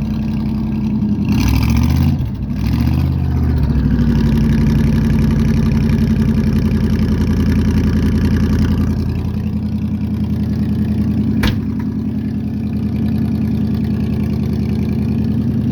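1971 Chevy C10 pickup's engine running just after a hard cold start. It is revved up and down about a second in, held at raised revs, then drops back to a lower, steady idle about nine seconds in. There is a single sharp click about eleven seconds in.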